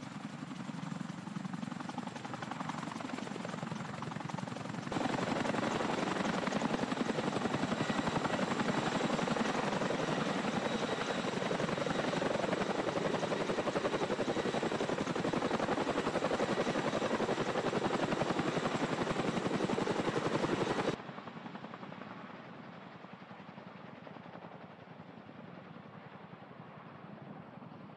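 CH-47 Chinook tandem-rotor helicopter hovering and then flying off with sling loads: a steady, heavy rush of rotor and turbine noise. It jumps louder about five seconds in and drops suddenly to a quieter, duller, more distant sound about three-quarters of the way through.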